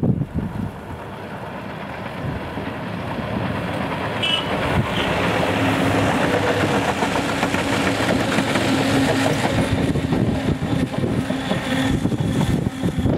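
Two coupled Siemens Desiro diesel multiple units (MÁV class 6342) passing: diesel engines drone and wheels run on the rails. The sound grows louder over the first few seconds, then holds steady as the train goes by.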